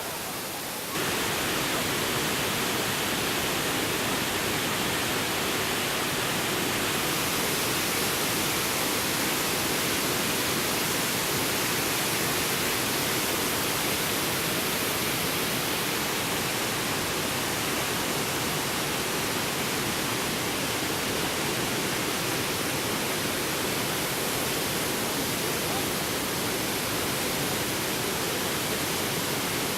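Steady rush of falling water from a waterfall, a dense even noise with no pauses, which jumps up in level about a second in.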